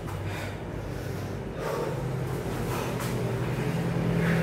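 Boxers breathing hard while sparring, with a few short, sharp exhales a second or so apart, over a steady low hum.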